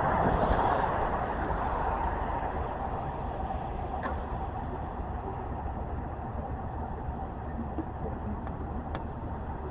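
Steady traffic noise, easing slightly in level, with a few faint clicks.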